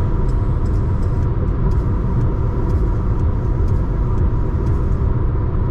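Car driving on an expressway, a steady low rumble of engine and road noise.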